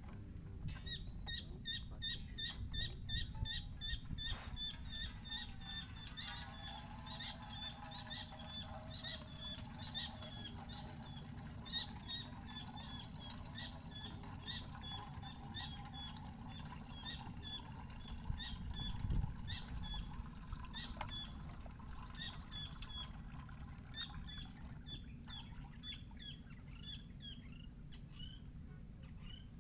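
A bird calling a long run of short, high, repeated chirps, fast at first and slowing later. For a few seconds in the first half, water is poured into a stainless steel bowl.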